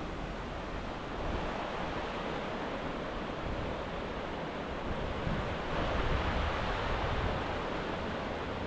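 Steady rushing of water, growing a little louder about six seconds in.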